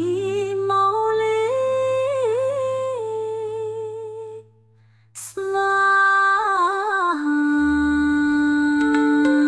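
Slow sung Buddhist mantra chant: a single voice holding long, hummed notes with wavering ornaments over a low drone. It breaks off for about a second near the middle and comes back with a sharp click.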